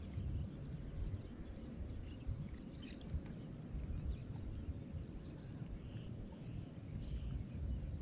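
Seashore ambience: a low, uneven rumble with faint bird chirps a few times, near the end most clearly.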